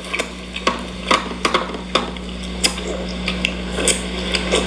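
Irregular sharp clicks and knocks, a few a second, from mutton marrow bones being handled and eaten by hand, over a steady low hum.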